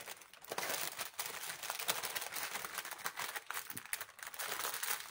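Clear plastic packaging bag crinkling as it is handled: a dense crackle from about half a second in, easing near the end.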